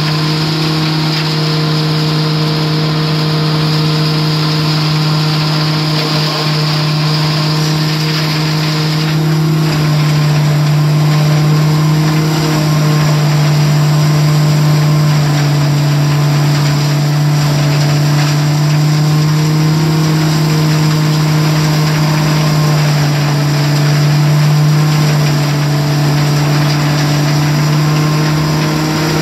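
Vermeer CPX 9000 bale processor, driven by a John Deere 6125R tractor, running steadily as it grinds a cornstalk bale and blows the shredded stalks out for bedding. The sound is a loud, steady machine hum with a rushing hiss of blown material over it.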